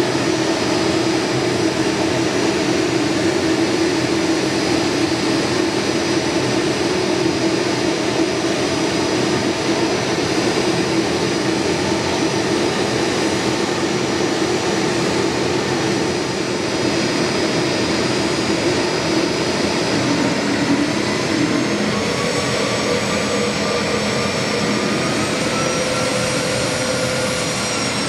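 Bombardier CRJ-200's twin rear-mounted GE CF34 turbofans idling with a steady high whine. From about twenty seconds in, the pitch rises a little as thrust comes up to get the jet moving for taxi.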